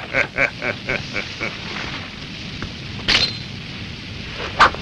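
A monster's cackling laugh, a quick run of "ha" pulses, about four a second, that dies away about a second and a half in. A sharp metallic sword clang with a brief ring comes about three seconds in, and another sharp hit comes near the end.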